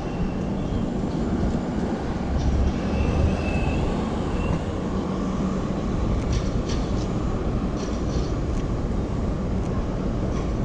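Steady low rumble of passing city vehicles, with a faint high squeal a few seconds in and a few short clicks past the middle.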